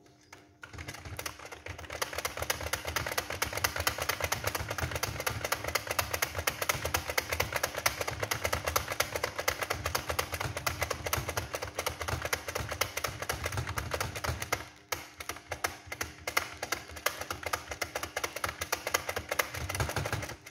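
Rapid, steady keystrokes on a computer keyboard during a typing drill, with a brief pause about three-quarters of the way through.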